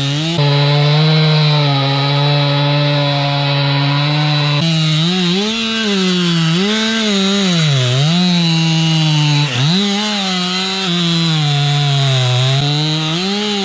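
Two-stroke chainsaw at full throttle sawing through a tree trunk for the felling back cut. Its engine note sags and recovers several times as the chain bogs down in the wood, then drops off at the end.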